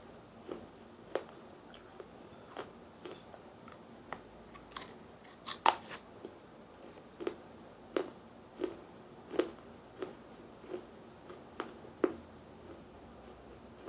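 A person biting and chewing pieces of a small baked-clay diya lamp: a sharp, crisp crunch about once a second, the loudest about six seconds in.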